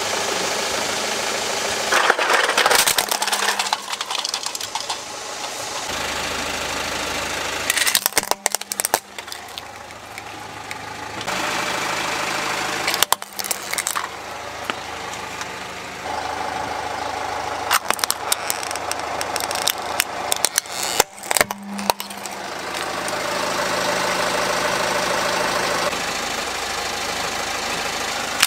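Car engine idling as the tyre rolls onto small plastic toy trucks, with clusters of sharp cracking and snapping as the toys are crushed, several times over.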